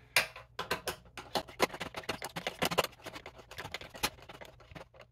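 Hand-turned screw being driven down into a toilet seat hinge mount, giving rapid, irregular small clicks and ticks as the screwdriver turns and the screw bites.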